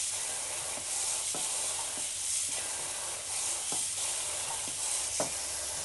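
Cold tap water running in a steady stream onto cooked tapioca pearls in a stainless-steel colander while a plastic spoon stirs them, with a few light knocks of the spoon against the colander.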